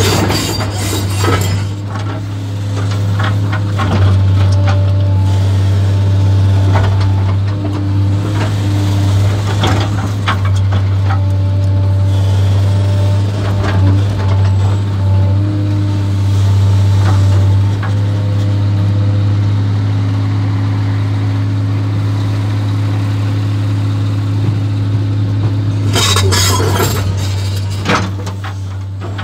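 JCB JS 235 HD tracked excavator's diesel engine running steadily, heard from inside the cab, with a hydraulic whine that shifts in pitch as the boom swings and the bucket works. A cluster of knocks and clatter comes near the end.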